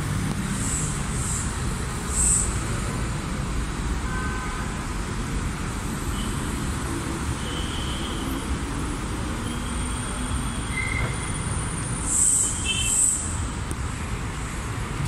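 Steady road traffic noise, a low rumble of passing vehicles, with a few short hisses near the start and again near the end.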